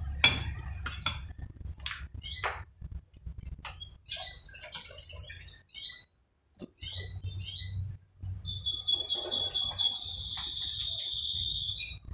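A bird chirping repeatedly, then a fast trill about eight and a half seconds in, followed by a held whistle. In the first seconds there are a few sharp clinks of a fork against a ceramic plate as eggs are beaten.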